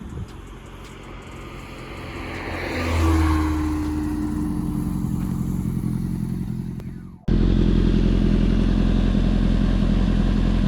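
2005 Honda CBR600RR's inline-four engine running as the bike rides by, rising to a peak about three seconds in and then falling slowly in pitch. Seven seconds in, a sudden cut switches to a louder, steady engine note.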